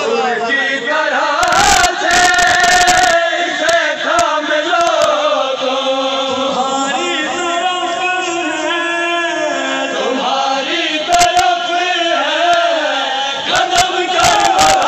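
A man's voice chanting a Shia devotional recitation through a microphone, in long, bending melodic lines. Short bursts of sharp strikes come about two seconds in and again near the end.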